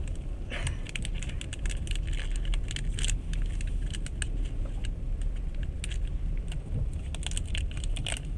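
Coins jingling and clinking as small change is handled to pay for a coffee, over the steady low rumble of a moving passenger train.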